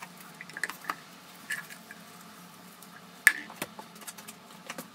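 PVC pipe pieces being handled and fitted together with PVC cement, giving scattered light taps and clicks, the sharpest about three seconds in. A faint steady hum sits underneath.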